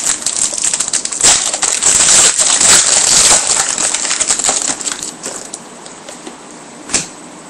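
Crinkling and crackling of a foil trading-card pack wrapper as it is handled and the cards are worked through, loud for the first few seconds and then fading, with one sharp click near the end.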